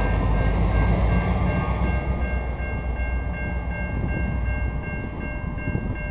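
Alaska Railroad EMD GP40-2 diesel locomotive rumbling past at the tail of a passenger train and moving away, the rumble easing over the last few seconds. A rapid repeating high ding sounds throughout.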